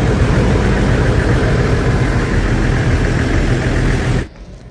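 An engine running steadily at idle, a loud low hum that cuts off abruptly about four seconds in.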